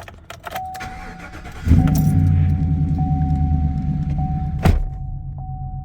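Chevrolet truck engine starting about two seconds in and settling into a rough idle, the sign of its cylinder 3 misfire. A steady high tone sounds throughout, and there is a single sharp knock about three seconds after the start.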